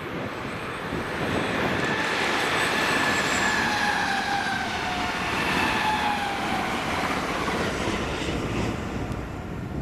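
Class 325 electric mail multiple units passing at speed: a steady rumble of wheels on rail with a faint whine that slowly falls in pitch. It is loudest about three seconds in and eases off toward the end.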